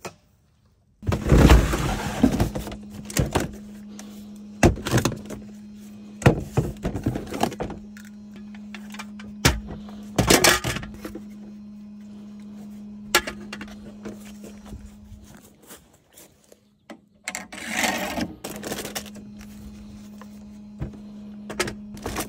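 Repeated thunks and knocks of objects being handled and set down, over a steady low hum that starts about a second in.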